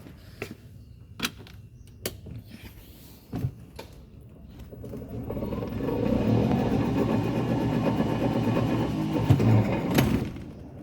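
Club Car Precedent golf cart moving off and driving: its running sound builds about five seconds in and holds steady, with a couple of knocks near the end. Before that, scattered clicks and knocks.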